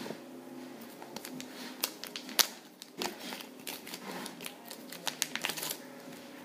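Plastic packet of fly-tying yarn crinkling as it is handled, in an irregular scatter of sharp crackles.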